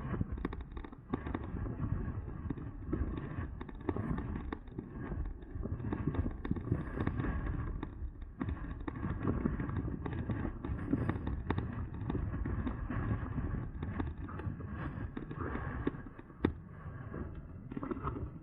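Riding noise from an e-bike: wind rushing over the microphone with a continual run of knocks and rattles as the bike rolls over rough ground.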